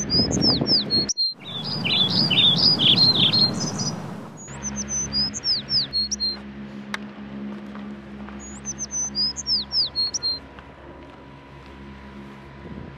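A songbird singing: a short phrase of high whistled notes that slide down in pitch, repeated several times, over a low steady hum.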